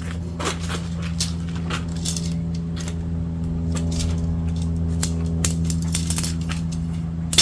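Shock-corded tent pole sections clicking and clinking as they are handled and fitted together, over a steady low hum.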